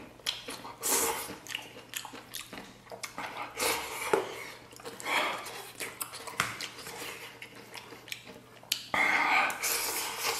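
Close-miked eating: slurping potato noodles, then chewing, with chopsticks clicking against a stainless steel bowl. A louder, longer stretch of noise comes about nine seconds in.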